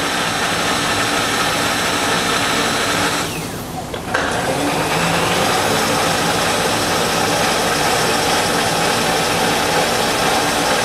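Milling machine table power feed running steadily as the table moves under the dial test indicator. It stops for under a second a few seconds in, where the table reverses direction, and starts again with a click.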